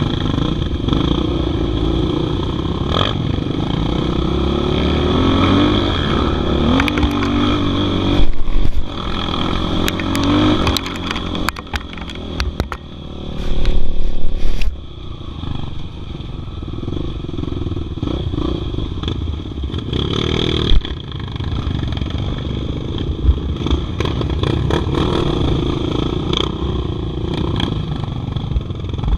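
Dirt bike engine running and revving over a rough muddy trail, heard close up, with clattering and scraping knocks, loudest about 8 seconds in and again around 14 seconds.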